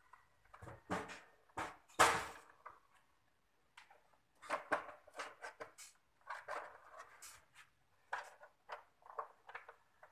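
Knocks, clatter and scraping as the plastic housing of a 1 hp Koolin split-type air-conditioner indoor unit is lifted and hooked onto its metal wall-mounting bracket, with the loudest knock about two seconds in.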